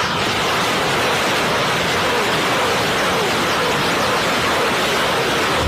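A steady, loud rushing hiss like running water or static, cutting in and cutting off abruptly.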